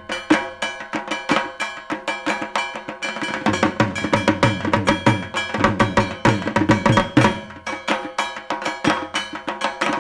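Dhak drum music in a dhunuchi dance rhythm: fast, dense drum strokes in a steady beat, with ringing tones held over them.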